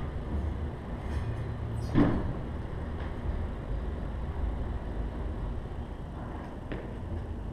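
Steady low rumble with one heavy thud about two seconds in and a fainter knock near the end.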